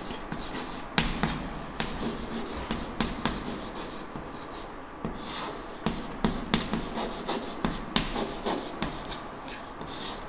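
Chalk writing on a chalkboard: a run of irregular taps and short scratching strokes.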